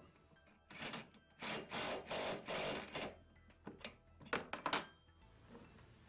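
Cordless drill with a socket spinning a nut down onto a seat belt mounting bolt in four short bursts, then a few sharp metal clicks of tools on the bolt and bracket.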